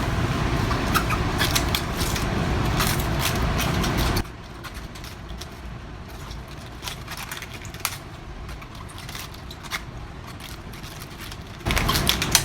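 Head of cabbage being sliced with a knife on a cutting board: dense crunchy cuts over a low hum. About four seconds in, the level drops abruptly to quieter, sparser cuts.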